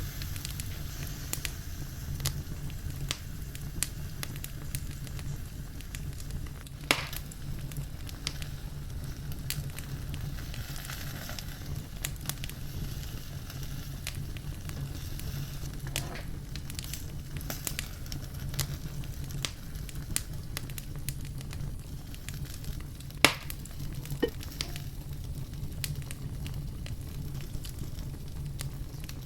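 BBQ-sauced chicken wingettes sizzling as they cook, with steady frying hiss, light crackling and scattered pops of fat, two of them sharper, about seven seconds in and again near twenty-three seconds.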